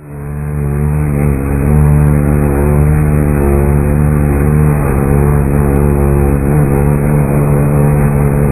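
A steady, low buzzing hum with many overtones, swelling up over the first second or so and then holding level.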